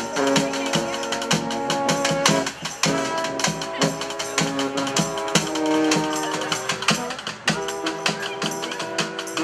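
Street brass band playing held horn chords over a steady drum beat, with short breaks in the horns twice.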